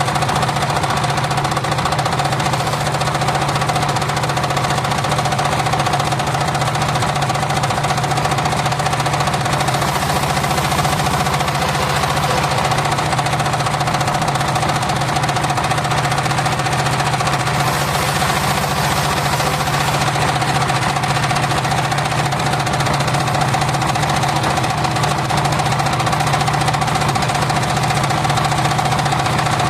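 Engine of a homemade circular sawmill running steadily at constant speed: a low engine drone with a steady high hum over it.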